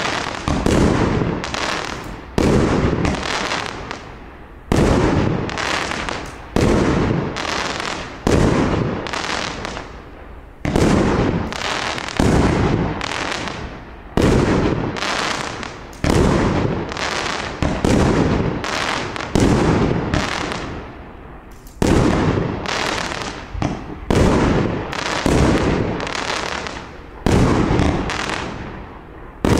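A 30 mm firework battery (cake) firing shot after shot, one about every one and a half to two seconds: each a sharp bang that trails off over a second or so as the gold titanium willow and silver chrysanthemum stars burn out.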